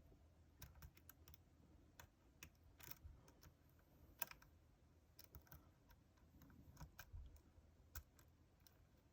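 Faint, irregular clicks of a lock pick and tension wrench working the pins of a Yale euro cylinder, a few sharp ticks scattered across a near-silent background.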